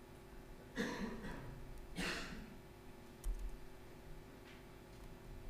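Two short breaths into a lapel or head microphone, about a second apart, then a sharp click and a few faint taps from a laptop keyboard, over a steady low room hum.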